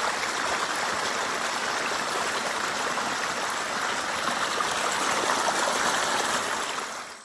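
Steady rush of falling water from a waterfall, fading out near the end.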